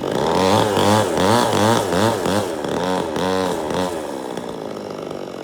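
Two-stroke chainsaw engine revving up and down over and over, its pitch swinging several times in about four seconds before it drops back to a lower, steadier running.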